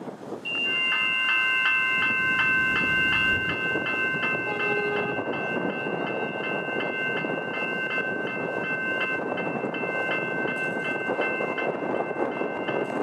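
Railway crossing bell starting to ring about half a second in, struck about two or three times a second, over a steady rushing background noise.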